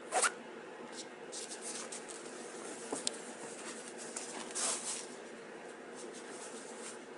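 Fabric outer shell of a Wiggy's mukluk rustling and brushing as it is handled and set down: a few short swishes, the loudest about a quarter second in and another a little before five seconds, over a steady low hum.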